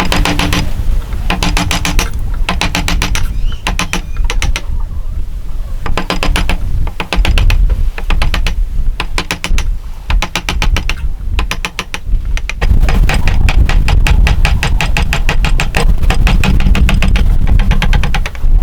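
Hand saw cutting wood, its teeth rasping in rapid, even clicks. The strokes come in short bursts of about a second with brief pauses, then run on continuously from about two-thirds of the way in.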